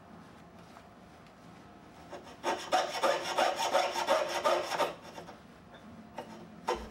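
Jeweler's saw cutting sheet silver in quick back-and-forth strokes. The sawing starts about two and a half seconds in, stops about two seconds later, and starts again near the end.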